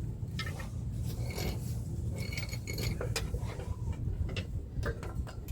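Irregular metal clinks, scrapes and knocks of tools and drivetrain parts being worked by hand, ending in one sharp, loud clank.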